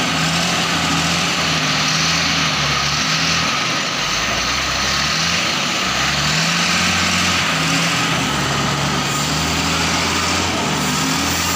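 Diesel engine of a TCM 870 wheel loader running, its engine speed rising and falling several times as the machine works.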